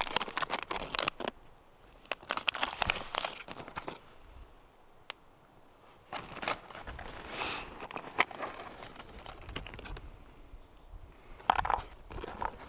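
Rummaging in a canvas backpack's zippered pouch: a plastic packet of water purification tablets crinkles as it is pulled out and laid down, with rustling and sharp clicks in bursts. The handling noise is busiest in the first few seconds, with another burst of rustling near the end as the hand goes back into the pouch.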